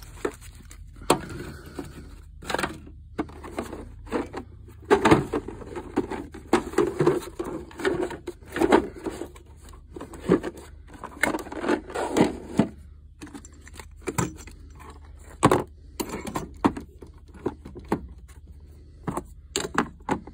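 Plastic tool cases and metal tools clattering, knocking and scraping as they are shuffled and packed into a toolbox drawer, in irregular bursts that are busiest in the middle.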